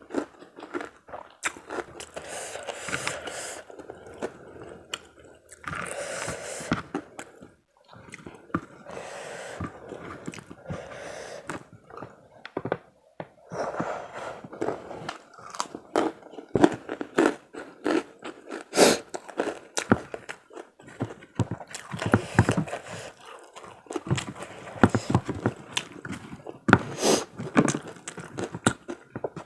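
Close-miked eating of karedok with rice and kerupuk crackers: crisp crunchy bites and wet chewing, coming thicker in the second half.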